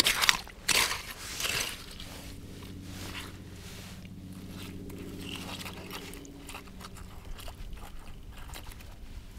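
Small hand cultivator fork scraping and crunching through wet gravelly sand and shells, with a few strong strokes in the first two seconds, then softer scrapes and clicks as clams are picked out of the mud by hand. A faint steady low hum comes in about two seconds in and fades out about seven seconds in.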